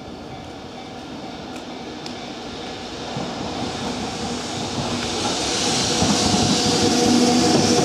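Nambu Line electric commuter train approaching on the tracks, its running noise growing steadily louder as it nears.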